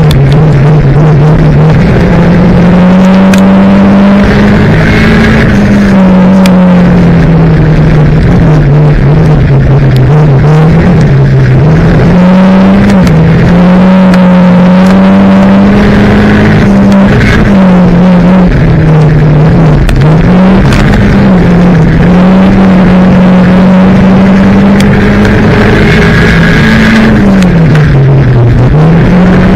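Banger race car's engine heard very loud from inside the stripped cockpit, its revs rising and falling every few seconds as it laps, with frequent short clicks and knocks over it.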